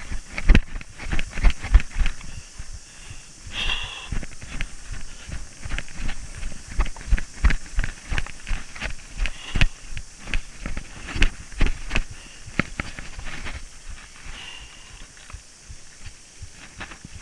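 Mountain bike riding fast over a rough forest trail: rapid knocks and rattles from the bike and camera mount over bumps, with tyre noise and a steady wind hiss on the camera. The knocks ease off in the last few seconds.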